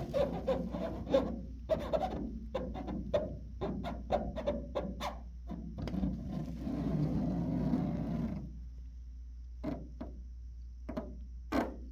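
A person making a rapid run of clicking and kissing mouth noises at a cat, then a low rumble lasting about two seconds, with a few more clicks near the end. A steady low hum runs underneath.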